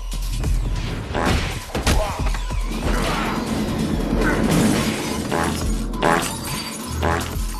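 Music over an action-film fight, with crashes and impacts mixed in.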